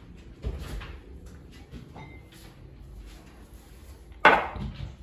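Knocks and clatter of things being handled in a kitchen, with one sharp, loud knock about four seconds in.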